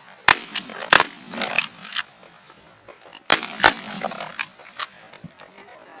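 Shotgun volley at geese: two loud blasts in the first second, a few fainter shots after them, then two more loud blasts about three and a half seconds in.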